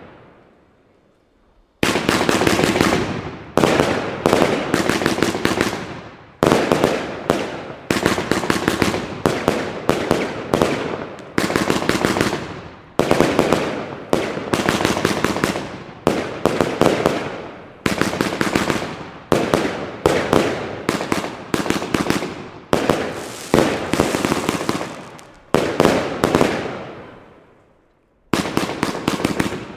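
Lesli Greater Lion Display Box, a 144-shot 30 mm compound firework battery, firing. After a short lull, a rapid run of shells bursts about once a second, each burst followed by crackling that fades as the next one comes. There is a brief pause just before the end, then the firing picks up again.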